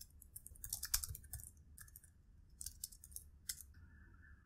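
Computer keyboard being typed on: rapid key clicks in several short bursts, stopping a little before the end.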